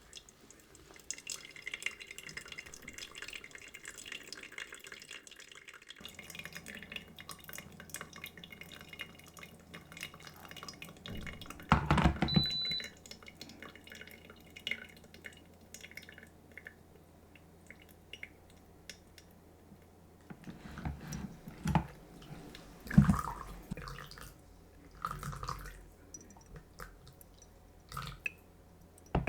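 Water dripping through a coffee filter, with occasional knocks and clinks of handled kitchenware, loudest about twelve seconds and twenty-three seconds in. A short high electronic beep sounds about twelve seconds in.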